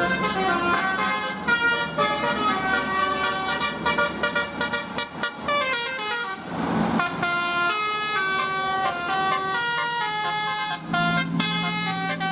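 Bus telolet horn, a multi-tone Basuri horn, playing a quick melody of stepped notes. A short rush of noise breaks in a little past halfway.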